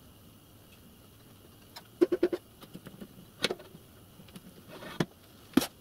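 Clicks and knocks of hand work on a miniature steam locomotive's chassis while the pony truck is fitted: a quick run of about four about two seconds in, then single knocks.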